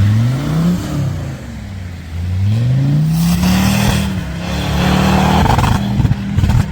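Off-road 4x4's engine revving up twice, its pitch climbing each time, then holding high and turning choppy and uneven near the end.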